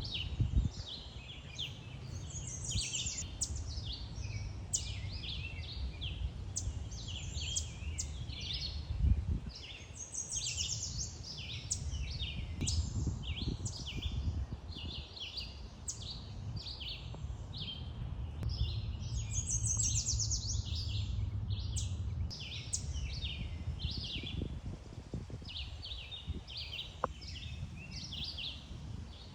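Wild birds chirping and singing, a dense run of short, high calls throughout, over a continuous low rumble with a couple of louder low thumps near the start and about nine seconds in.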